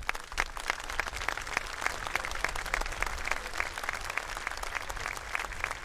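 Large crowd applauding, many hands clapping steadily.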